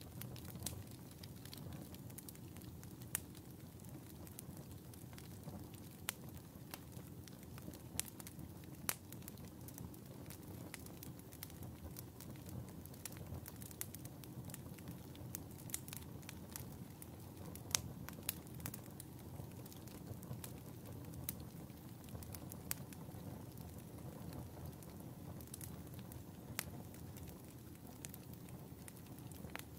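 Wood fire burning in a fireplace: a steady low rumble of flames with irregular sharp crackles and pops, a few of them noticeably louder.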